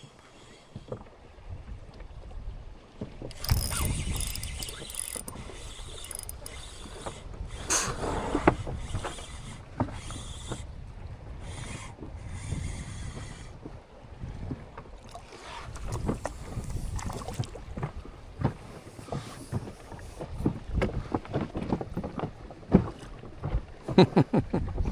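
Strong gusty wind buffeting the microphone with a low rumble, over waves splashing on the river and scattered knocks.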